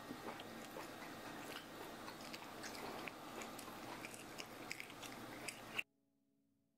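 A young child chewing and biting food close up, quiet small wet clicks and crackles of the mouth; it cuts off abruptly near the end.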